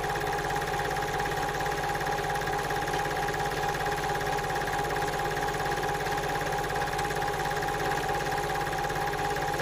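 A steady, unchanging drone: a low, fast-pulsing hum with a held tone above it.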